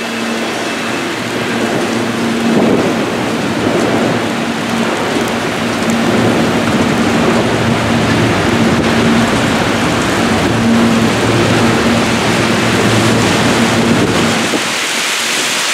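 Heavy rain pouring down during a thunderstorm, with a long roll of thunder from about two seconds in until near the end. A steady low hum runs underneath.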